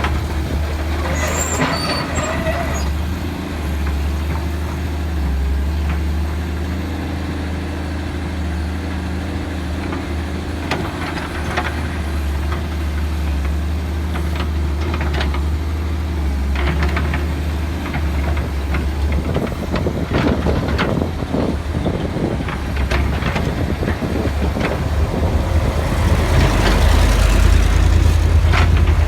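Machinery running with a steady low hum. Scattered clicks and knocks come in partway through, and it grows louder and noisier near the end.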